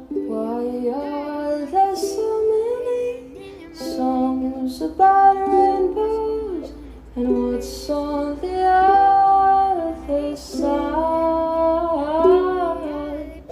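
A woman singing a slow song to a plucked ukulele accompaniment.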